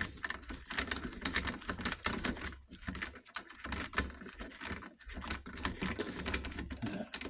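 A socket on a lock-ring tool, turned by hand to screw a steel lock ring onto a Norton Commando gearbox's clutch actuating mechanism: an irregular run of light metallic clicks and taps, with a few short pauses.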